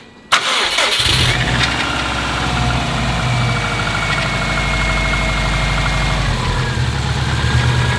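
Car engine with newly built forged pistons started for the first time: it catches abruptly about a third of a second in, flares for about a second, then settles into a steady idle. This is the test fire of the fresh engine, to check that it starts and doesn't leak.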